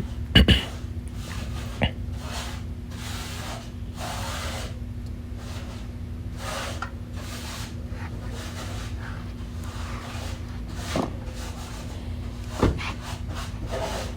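Hand tool working the Torx screw of a car door handle: repeated short scraping, rubbing strokes with a few sharp knocks, the loudest about half a second in. A steady low hum runs underneath.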